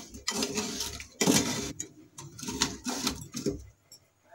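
A metal spoon scraping and stirring sugar-coated paneer cubes and loose crystallised sugar around a nonstick frying pan, in several short strokes that stop shortly before the end.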